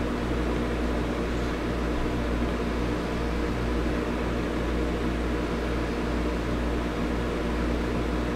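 A steady mechanical hum with a constant hiss, even in level and unchanging, of the kind a fan, air conditioner or household appliance makes.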